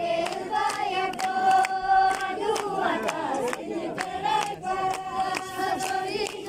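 Kalash festival chant: a crowd sings together in long held notes, with rhythmic hand clapping.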